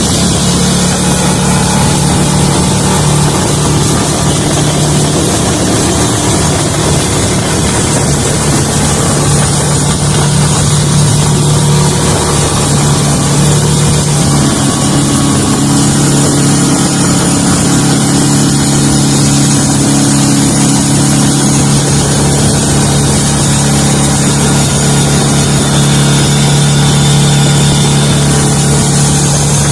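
Boat motor running flat out, with a dense steady rush of wind and water over it; the engine note shifts slightly about halfway through. The boat is running fast through very shallow water, where slowing down would leave it stuck.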